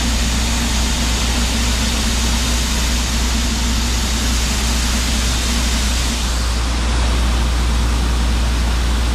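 Vehicle engine running steadily with a constant rumble and hiss. A faint steady tone drops away about six seconds in, and the sound grows slightly louder soon after.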